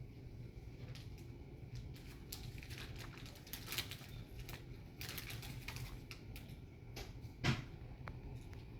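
Irregular light clicks and taps over a low steady hum, with one louder knock near the end.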